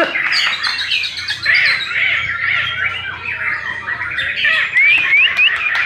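White-rumped shamas singing in a contest, a dense mix of overlapping chattering phrases and whistles, with a few clear rising whistled notes about five seconds in.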